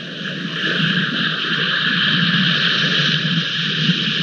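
Steady rushing noise of wind and rain on an outdoor wildlife camera's microphone, with no calls or knocks standing out.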